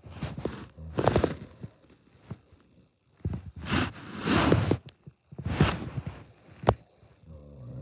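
Fabric cover of a weighted blanket rustling and swishing in four bursts as a cat paws and digs at it, with one sharp click a little before the end.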